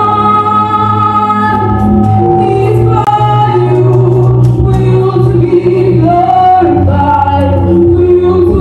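Gospel choir singing behind a female lead singer on a microphone, with some notes held for a couple of seconds, over drum kit accompaniment with an occasional cymbal or drum strike.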